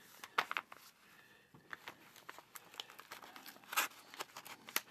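Yellow plastic mailer envelope crinkling as it is handled and worked open, in irregular crackles and small rips, a couple of them louder near the end.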